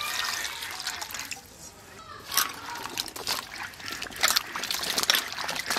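Water poured into a metal bowl of cut bottle gourd and potato, then hands splashing and rubbing the pieces in the water to wash them. The pour is a steady trickle in the first second or so. Irregular splashes follow from about two seconds in.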